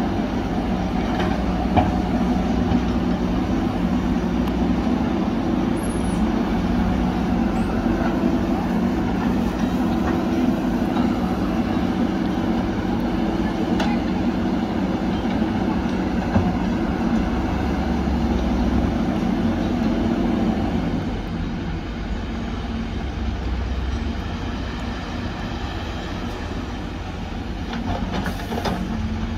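Diesel engines of backhoe loaders and a dump truck running under work, a steady heavy rumble with a few sharp knocks. About two-thirds of the way in the loudest engine note drops away and the rumble eases.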